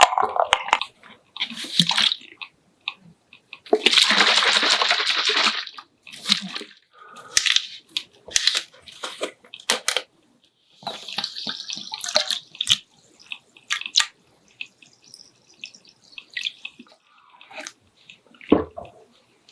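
Close-miked eating of chueotang soup: liquid slurps and spoon-in-broth sloshing, broken up by short wet chewing sounds and clicks. The loudest is one long slurp about four seconds in, lasting roughly two seconds.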